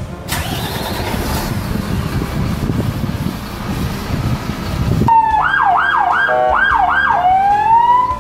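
Loud low rumbling noise for about five seconds, then a fire truck's electronic siren starts up: fast rising-and-falling wails about twice a second, ending in a slower rising tone that cuts off suddenly.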